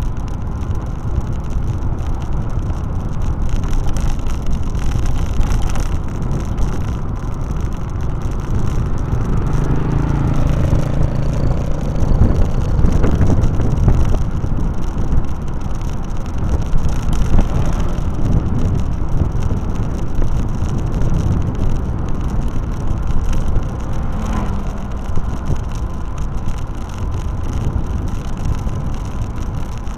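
A vehicle driving along a road: a continuous low rumble of engine and road noise, with an engine note swelling about ten to fourteen seconds in.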